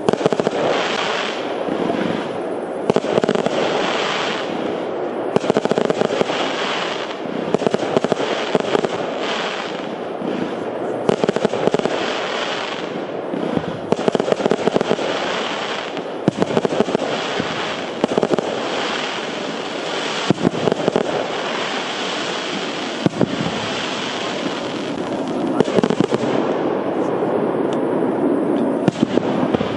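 Fireworks display: a continuous barrage of shell bursts, many sharp bangs in quick succession over a constant crackling roar, with hardly a gap.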